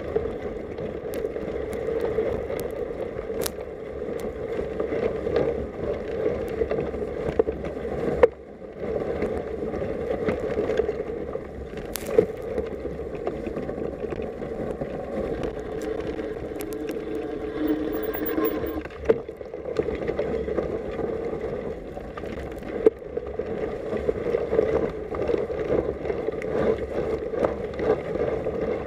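Radon ZR Race 6.0 mountain bike riding through snow, heard from a camera mounted on the bike: a steady rolling rush of the knobbly front tyre in snow and the bike rattling, with a few sharp knocks.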